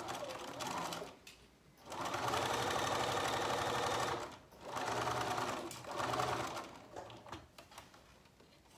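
Electric sewing machine stitching a zip onto fabric with a straight stitch, running in stop-start bursts: a short run, a longer run of about two seconds, then two shorter runs before it stops about seven seconds in.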